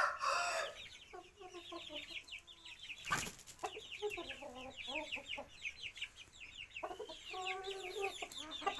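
Aseel chickens clucking in three short spells, over continuous rapid high-pitched chirping. A rooster's crow trails off at the very start, and there is a single sharp click about three seconds in.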